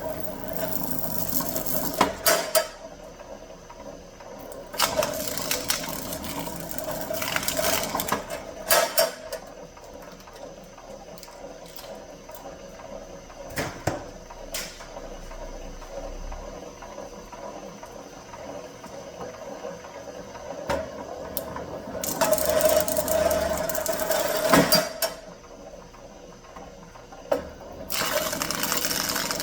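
A wire-stripping machine running in several bursts of a few seconds as copper wire is fed through, with quieter stretches between that hold scattered clicks and knocks.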